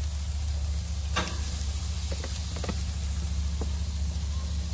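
Marinated jerk chicken pieces sizzling on a hot gas grill, with a steady low rumble underneath. Several sharp clicks of metal tongs as pieces are laid on the grate, the loudest about a second in.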